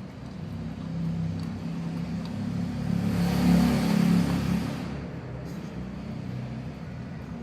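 A vehicle passing by, swelling to a peak about halfway through and fading again, over a steady low hum.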